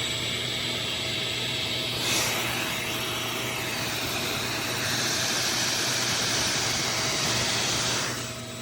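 Oneisall LM2 pet grooming vacuum running, a steady motor whine with suction hiss. The hiss grows brighter about two seconds in and again about five seconds in, then eases off near the end.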